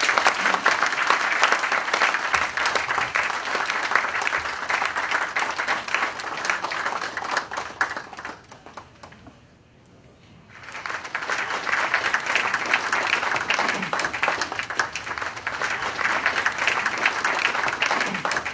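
Audience applauding in two rounds: dense clapping for about eight seconds, a short lull, then a second round of clapping starting about ten and a half seconds in.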